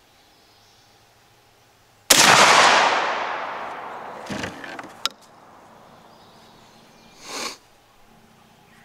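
A single 12-gauge shotgun shot from a Stoeger M3500 semi-automatic firing a Federal Power Shock rifled slug: one sudden loud blast whose echo dies away over about two seconds. A sharp click follows about three seconds later.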